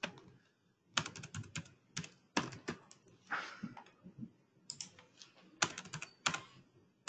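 Computer keyboard typing in short runs of quick keystrokes with brief pauses between them.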